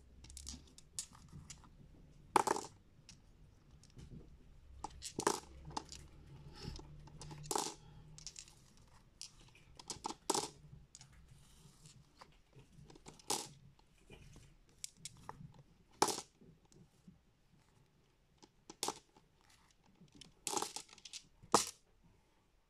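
Small stone rune tiles clicking and knocking against each other as they are picked up by hand and gathered, one sharp click every second or two at irregular intervals.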